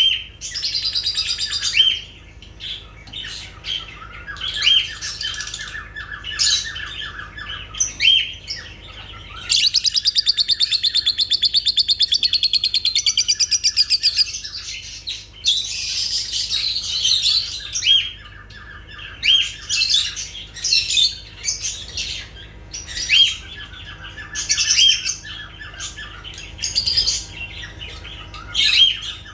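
Lovebirds chirping and squawking: sharp, high call notes over runs of buzzy chatter, with a loud, rapidly pulsing trill lasting about five seconds near the middle.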